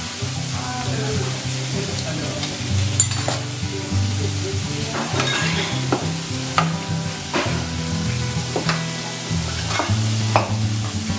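Bean sprouts and leafy greens sizzling on a steel teppanyaki griddle, with a metal spatula and fork scraping and clicking against the plate several times. Background music with a bass line plays under it.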